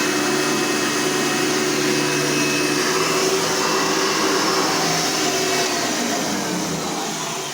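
Hoover vacuum cleaner's motor running steadily, then winding down near the end, its hum sinking in pitch and fading.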